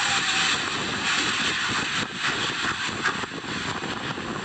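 Vehicle in a heavy rainstorm on a flooded road: a steady dense hiss of rain and water around the car, with many small irregular hits.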